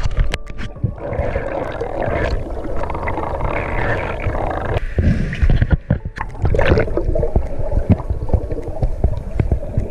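Muffled underwater sound from a camera held underwater in a river: low rumbling water noise with many small clicks and knocks.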